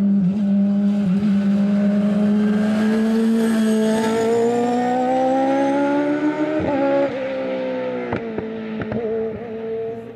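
Fiat 500-bodied hillclimb racer with a naturally aspirated V8 accelerating hard, its note climbing steadily. About two-thirds in, the pitch breaks and drops at an upshift, then climbs again while the sound grows fainter toward the end.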